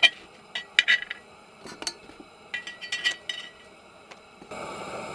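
Metal utensils clinking against cast-iron cookware, a string of sharp clinks each with a brief ring. A steady hiss comes in abruptly near the end.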